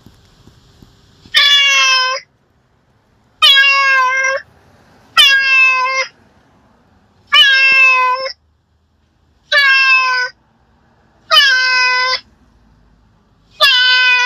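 A cat meowing over and over, seven meows about two seconds apart, each slightly falling in pitch at its end.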